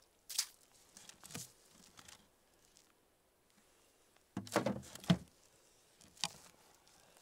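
Scattered rustles and scrapes of a person handling gear at an ice-fishing box in the snow, with a louder cluster of knocks and scrapes about four and a half seconds in as the box's lid is shut.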